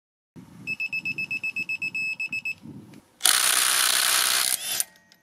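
Makita DTD154 18 V brushless impact driver hammering on a car wheel bolt: a loud burst of rapid impacts lasting about a second and a half, cutting off abruptly. Before it comes a quieter, even pulsing with a high tone, about ten pulses a second.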